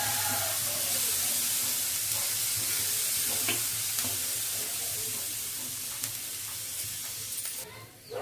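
Green chillies sizzling as they roast on a flat iron pan, turned now and then by a metal spoon; the sizzle cuts off abruptly near the end.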